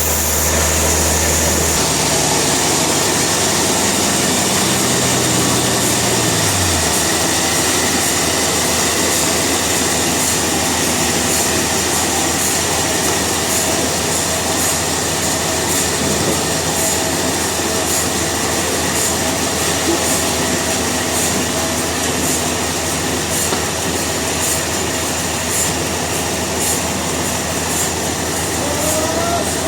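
Industrial sawmill machinery running, a loud, continuous mechanical din with a steady high whine. A few seconds in, a low motor hum winds down in pitch and stops, while the rest of the machinery keeps running.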